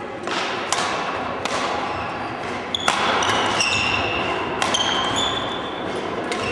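Badminton rally: sharp racket strikes on the shuttlecock about every one to two seconds, with short high squeaks of court shoes on the wooden floor, echoing in a large sports hall.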